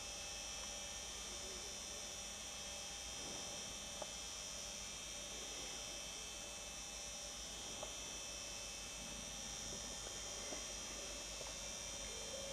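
Steady, high-pitched chorus of night insects chirring, over a low electrical hum, with three faint clicks spread through it.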